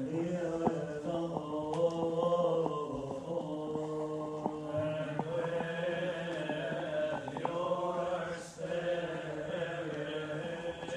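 Coptic Orthodox liturgical chant: a slow sung line of long held notes that step up and down in pitch, with a few faint clicks over it.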